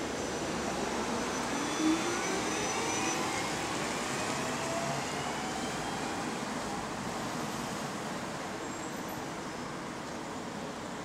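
Electric single-deck bus pulling away, its motor whine rising in pitch over the first few seconds, over steady road traffic noise. A brief knock about two seconds in.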